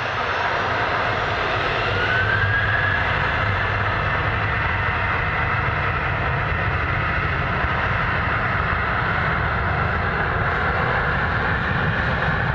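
Airliner engines running with a loud, steady roar, a whine rising briefly about two seconds in.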